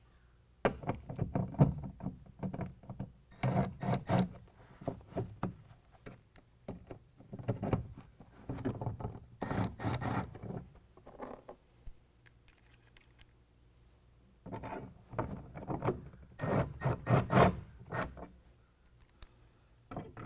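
Cordless Milwaukee impact driver running bolts into a bracket in several short bursts with pauses between. The loudest bursts have a dense, rapid hammering rattle.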